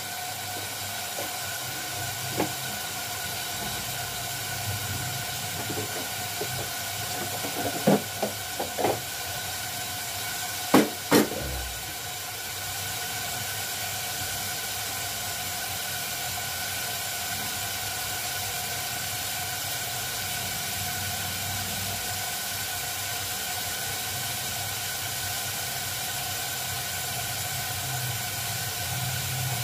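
Meat frying in oil in a pot over a gas flame: a steady sizzling hiss as it browns. A few sharp knocks stand out about eight and eleven seconds in.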